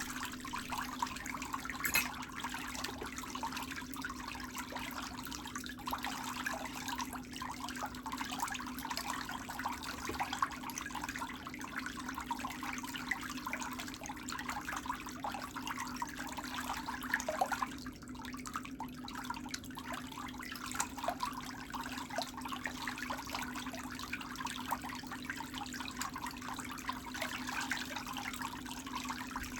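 Water trickling and splashing in a pedicure foot bath, over a steady low hum.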